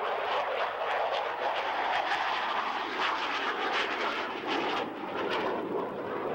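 F-16A Fighting Falcon's single Pratt & Whitney F100 turbofan flying past: steady jet noise with a ragged crackle.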